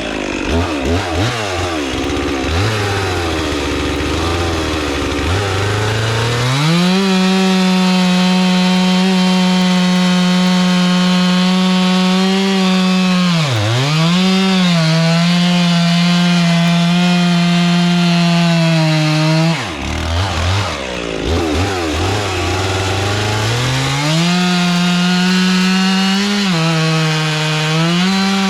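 Stihl two-stroke chainsaw bucking logs into firewood: running low and uneven for the first few seconds, then opening up to full throttle and holding steady in the cut from about six seconds in, with a brief dip in pitch about halfway. It eases off after about twenty seconds, then revs back up into another cut near the end.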